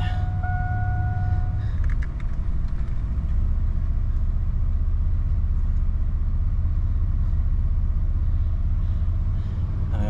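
2004 Chevrolet S10 Blazer's 4.3-litre V6 idling steadily at about 1,000 rpm, heard from inside the cabin. A dashboard warning chime sounds a steady tone and stops about a second and a half in, followed by a few light clicks.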